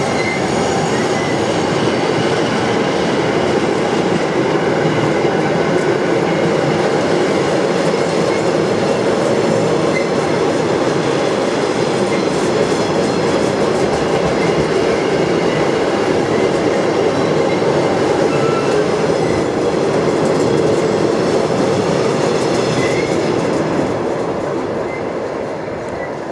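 Double-deck car-carrier freight wagons rolling past close by: a steady rumble and clatter of wagon wheels on the rails, with a faint high squeal. It fades near the end as the tail of the train goes by.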